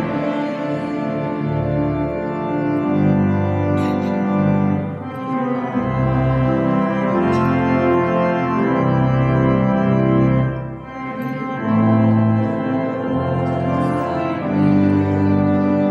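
Organ playing a hymn in slow, sustained chords, with a short break between phrases about eleven seconds in. No singing is heard.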